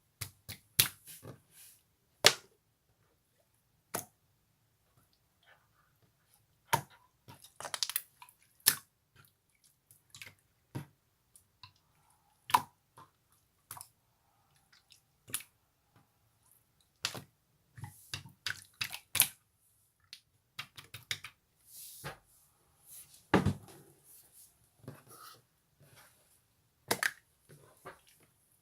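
Slime being pressed, stretched and squished by hand, giving irregular sticky clicks and air-bubble pops, a few of them sharper and louder.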